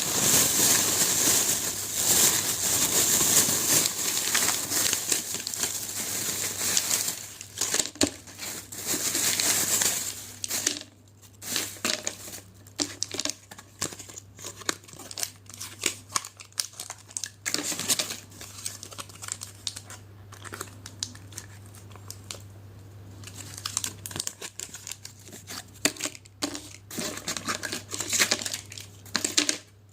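Medicine packaging crinkling and tearing as it is handled and opened. The crinkling is dense for about the first ten seconds, then breaks into scattered crackles.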